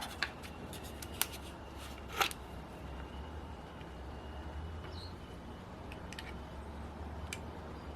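A few small metallic clicks and taps as the camshaft of a Magnum XL 30 RFS model four-stroke engine is handled and set into its crankcase, over a low steady hum.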